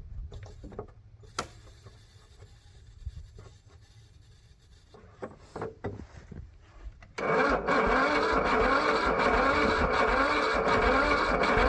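Cold lawn tractor engine cranked over by its electric starter after a dose of starting fluid; it does not catch. A few faint clicks come first, then a loud steady cranking with an even pulse starts about seven seconds in.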